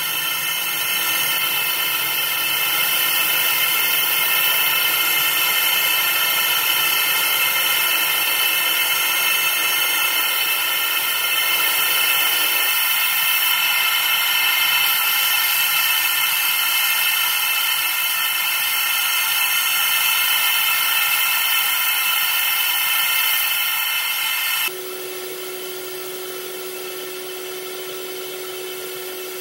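Laser engraving machine running while it engraves a metal plate: a steady whir and hiss with several steady high-pitched tones. About 25 seconds in it drops to a quieter steady hum with one low tone.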